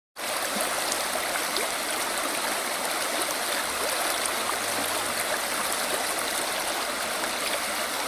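Shallow forest stream babbling over pebbles and stones: a steady rush of flowing water with small ticking splashes.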